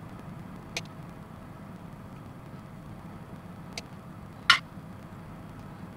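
Hobby side cutters snipping a small plastic model kit part: three sharp snips, a small one about a second in, a faint one near four seconds, then the loudest about four and a half seconds in.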